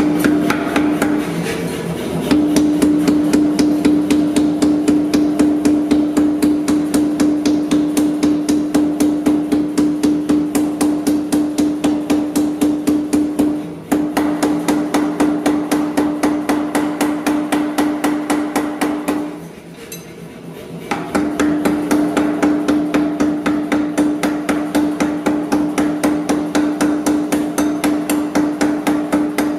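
Mechanical power hammer striking a glowing pattern-welded steel billet in rapid, even blows, several a second, over a steady hum. The blows stop for about a second and a half about two-thirds of the way in, then start again.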